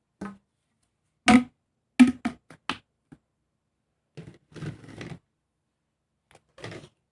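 Plastic fidget toys, pop tubes and a pop-it, being handled: a series of short, sharp pops and clicks, with a quick run of four about two seconds in. Softer, scrunchy crackling follows around four to five seconds in and again near the end.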